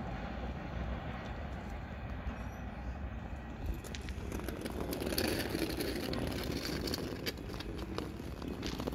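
Steady low rumble of a freight train fading away down the line. About four seconds in, irregular crunching footsteps on gravel join it.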